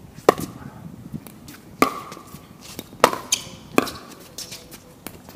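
Pickleball paddles hitting a plastic pickleball in a rally: four sharp hits, each with a brief ring, coming quicker toward the end.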